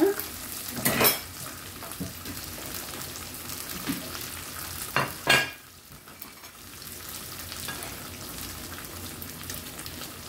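Thin beef slices sizzling as they fry in bubbling sauce in a nonstick pan, a steady frying hiss. Two brief louder noises stand out, about a second in and around five seconds in.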